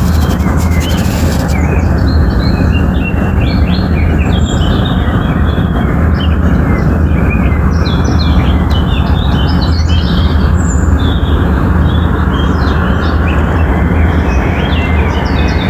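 A chorus of small birds chirping and twittering nonstop, many overlapping short calls, over a loud, steady low rumble.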